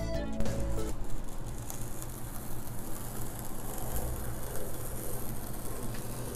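Perforated tear strip being pulled along the edge of an Apple iMac's cardboard box: a continuous crackling rip of cardboard, starting about a second in.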